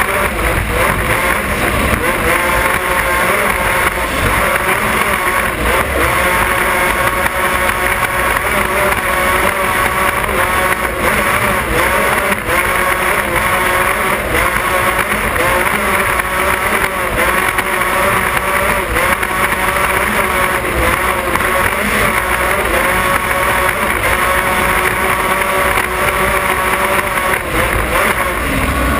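Offshore racing powerboat's engines running flat out at high speed, a loud steady drone whose pitch wavers slightly, over the rush of wind and water spray.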